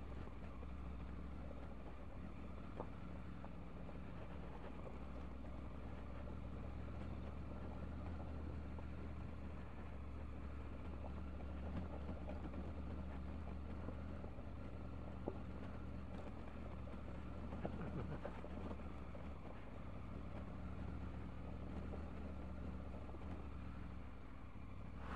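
Triumph Tiger 900's three-cylinder engine running at steady low revs while the motorcycle is ridden over a rough track, with a few sharp knocks along the way.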